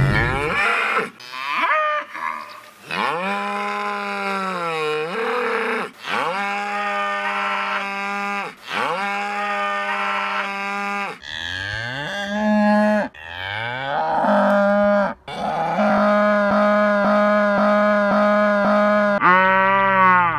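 Snowmobile engine running hard at a steady high pitch for a few seconds at a time, broken by brief dips and swoops back up as the throttle is let off and reapplied.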